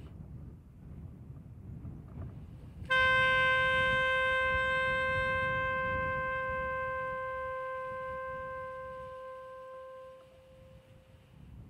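Saxophone holding one long, steady note that starts about three seconds in and slowly fades away over about seven seconds. Wind rumbles on the microphone throughout.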